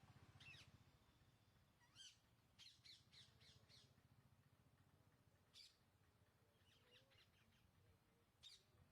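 Rose-ringed parakeets giving faint, sharp calls: single calls at scattered moments and a quick run of about five calls around three seconds in.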